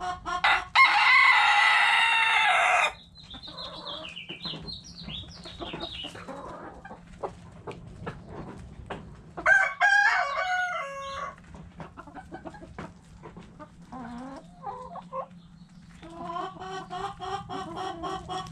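Bantam Silkie rooster crowing about a second in, then a second rooster crow about halfway through. Between them, chickens clucking and beaks pecking at scattered grain, with a run of rapid, evenly repeated clucks near the end.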